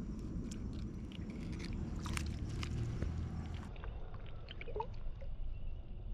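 Shallow pond water sloshing and splashing as a hand releases a bass and the fish swims off through the weeds, with scattered small splashes and drips.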